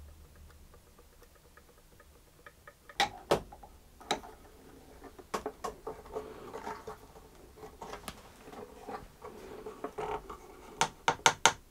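A wooden-jawed bar clamp being handled and worked loose on a violin's body: faint ticking at first, then a series of sharp clicks and knocks from the clamp's jaw and bar, with some rubbing in between and a quick run of clicks near the end.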